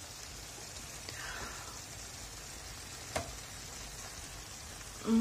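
Steady sizzling hiss from a pork knuckle roasting in a puffed-up baking sleeve in a hot oven, with a single sharp click about three seconds in.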